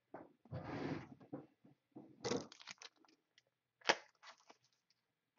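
Crinkling and rustling of thin plastic with scattered crackles and a sharp click near four seconds in: trading cards and plastic penny sleeves being handled.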